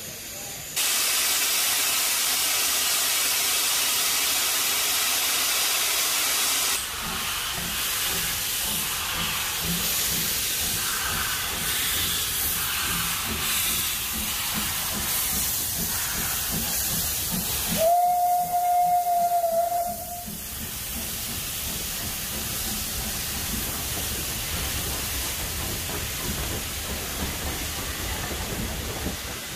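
Steam locomotive blowing off steam with a loud hiss that starts about a second in and eases a few seconds later. About eighteen seconds in comes one steam whistle blast, a single steady note lasting about two seconds, after which a steady hiss with a low rumble carries on.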